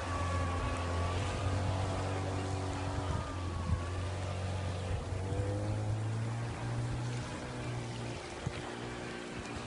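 25 hp Mercury outboard motor driving a small motorboat at speed, a steady engine hum whose pitch shifts a few times.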